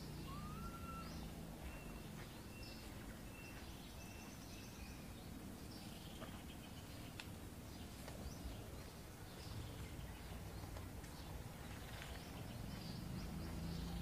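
Faint high animal calls over a low steady rumble. In the first few seconds there is a run of about five short, evenly spaced chirps, followed by scattered thin squeaks.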